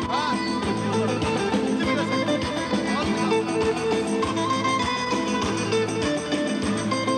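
Instrumental music led by plucked strings, with a steady beat.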